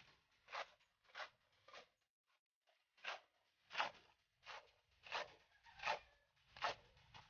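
Short, even scraping strokes of a hand tool working wet cement, about one every two-thirds of a second, with a brief pause about two seconds in.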